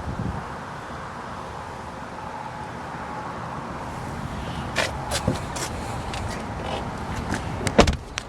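Steady outdoor background noise, then a run of sharp clicks and knocks in the second half, the loudest a double knock near the end.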